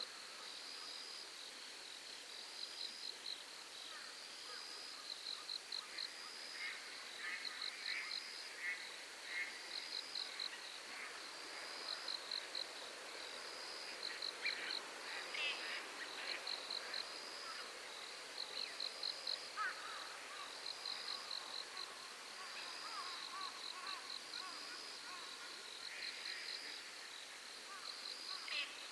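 Night insect song: a high-pitched call repeating about every two seconds, each a short tone followed by a quick run of pulses, over a faint hiss. Scattered lower animal calls and chirps come and go, busiest in the middle.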